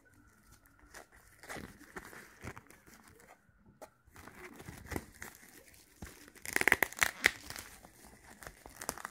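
Clear plastic shrink-wrap being torn and peeled off a disc package, crinkling in irregular crackles. The crackling is loudest about two-thirds of the way through.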